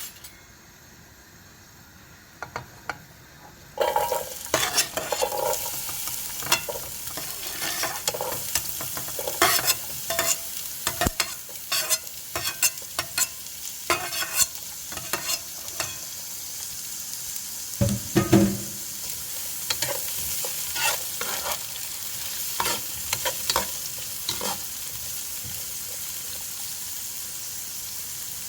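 Food frying in hot oil in a pot: a sizzle starts abruptly about four seconds in and keeps going. A spoon scrapes and knocks against the pot again and again as the food is stirred.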